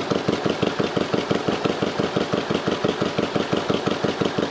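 Avro Speedster's engine idling, heard at the exhaust outlet that has no muffler yet: open exhaust with an even beat of about eight pulses a second.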